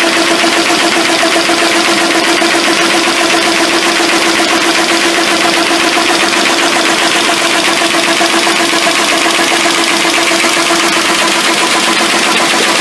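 PS800 pressure sealer running with its shingle feeder, forms being fed through continuously: a loud, steady machine hum under a rapid, even clatter.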